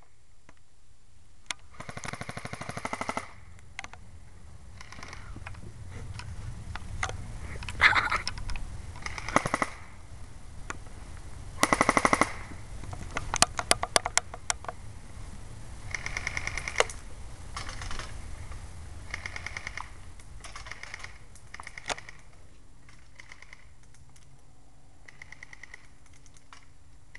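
Airsoft guns firing: several full-auto bursts of rapid clicking shots, the longest about a second and a half, mixed with scattered single shots.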